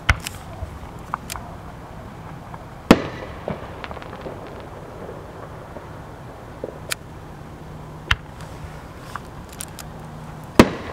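Aerial fireworks shells going off: about five sharp bangs at irregular intervals, the loudest about three seconds in, with smaller pops between them.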